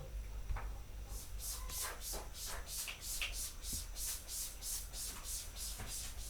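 Rhythmic scraping strokes, about three a second, starting about a second in and stopping near the end.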